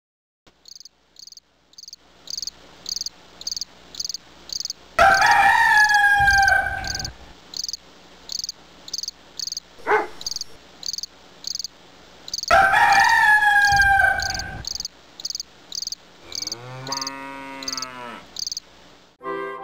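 Crickets chirping in an even rhythm, about two chirps a second, with a rooster crowing twice, about five seconds in and again about twelve seconds in. A sharp click comes near the middle, and a lower call near the end.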